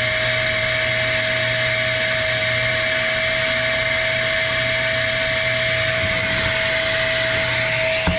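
Bauer 14-gallon 6 hp shop vacuum running at full speed: a steady high motor whine over rushing air. Near the end the air sound rises in pitch and there is a short knock.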